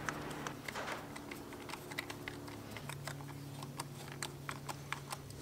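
Screwdriver loosening the terminal screws of a three-phase twist-lock plug: many light, irregular clicks and ticks of the metal tip and the plug's plastic body being handled.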